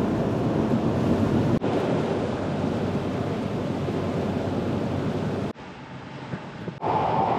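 Strong wind rushing over the microphone, a steady noise with no tones in it. It drops off suddenly about five and a half seconds in and comes back up just before the end.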